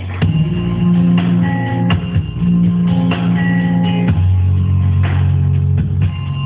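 Loud recorded music with a heavy bass line and a steady drum beat.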